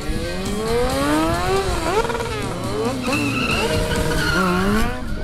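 Stunt motorcycle engine revving hard, its pitch climbing and dropping back several times, with tyres skidding on the tarmac.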